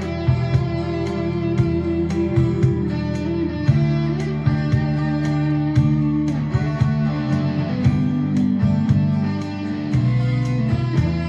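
Charvel electric guitar with a humbucking pickup playing a melodic lead line in a slow ballad, over an accompaniment of sustained low notes and a light beat.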